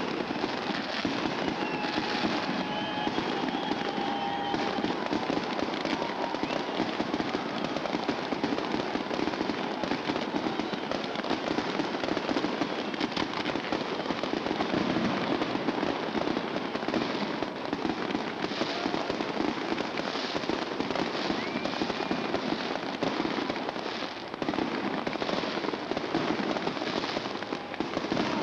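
Fireworks going off in a continuous dense crackle from spark fountains.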